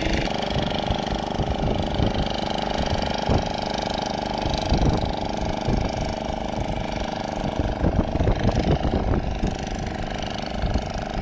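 An engine running steadily with a fast, even throb, loud and continuous throughout, with a few short knocks over it.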